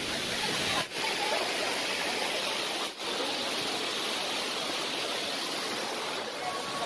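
Steady rushing of a waterfall, an even roar of falling water that dips for an instant twice.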